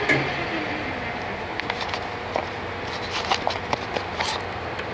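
A click, then the Hardinge HLV-H toolroom lathe's spindle drive winding down with a short falling whine. After that there is a steady low hum with scattered light clicks and knocks.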